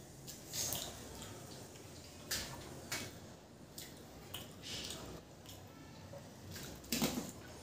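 Bare fingers mixing and gathering rice and curry on a steel plate: soft wet squishing and small clicks in a few separate strokes, with a sharper smack about seven seconds in.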